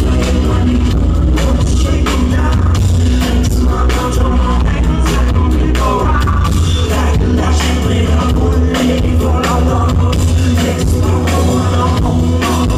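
Live band music played loudly, a singer over a guitar and a heavy bass line.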